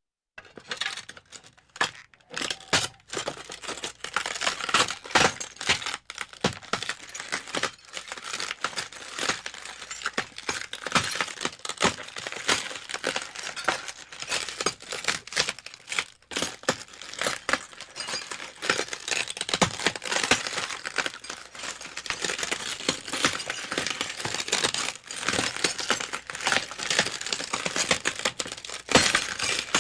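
Broken glass shards clinking and crunching in a continuous stream of small, sharp clicks with louder crunches scattered through, starting about half a second in.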